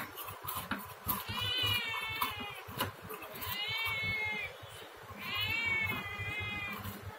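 A domestic cat meowing three times, each call drawn out for about a second and arching up and down in pitch, begging for fish. Short sharp clicks from the blade scaling fish fall between the calls.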